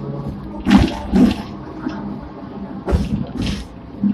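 Sixth-generation Hong Kong tram running on its rails, its wheels knocking over rail joints: two double knocks about two seconds apart, over a steady motor hum.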